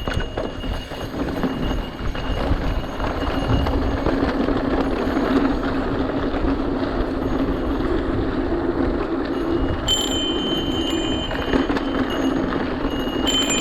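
Mountain bike rolling fast, with steady tyre and wind rush. Two short, high squeals, about ten seconds in and again near the end, typical of disc brakes being applied.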